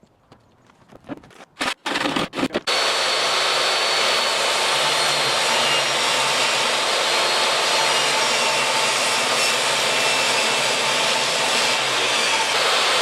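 A few light knocks, then about three seconds in a power tool starts and runs steadily, working wood.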